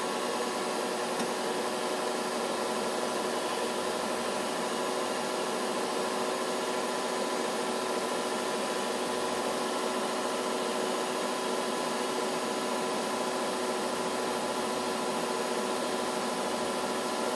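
NC bell-knife leather skiving machine running at a steady pace, its motor and spinning bell knife giving an even whir with several held tones, while the edge of a leather piece is fed through to thin it for a seam allowance.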